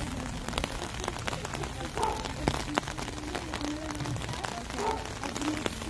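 Rain falling, a steady hiss with many small ticks of drops close by, and faint voices in the background.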